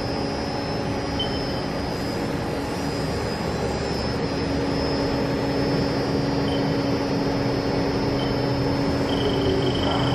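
2010 Haas Super Mini Mill 2 CNC vertical machining center under power: a steady mechanical hum with a constant high whine. A few short high beeps sound now and then, the longest near the end.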